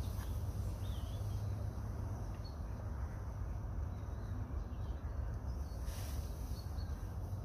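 Woodland background: a steady low rumble with a few faint, brief bird chirps scattered through, and a soft rustle about six seconds in.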